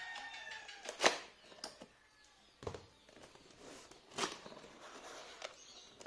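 Cardboard laptop box being handled and opened: a few separate knocks and cardboard rustles as it is laid flat and its lid is lifted, the loudest knock about a second in.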